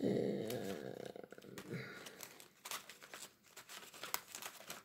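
Paper packaging of tea-bag sachets being handled, rustling and crinkling. It is loudest in the first second or so, then breaks into a run of small crackles.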